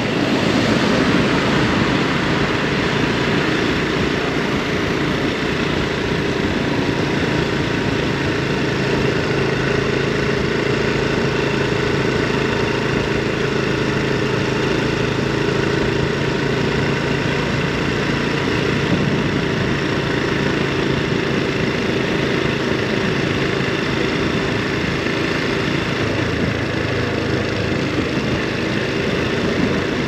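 Honda Super Cub 110 Pro's small air-cooled single-cylinder four-stroke engine running at a steady, even pace, under a steady rushing noise.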